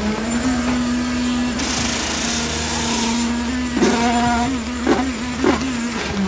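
Concrete pump engine running steadily at high revs while concrete is pumped through the delivery hose, with a burst of hiss about two seconds in and a few sharp knocks near the end.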